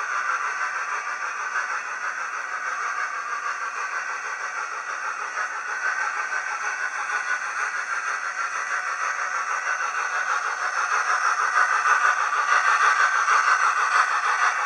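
OO gauge model train running on the track: a steady whirr of the small motor and the wheels rolling on the rails, getting a little louder about ten seconds in.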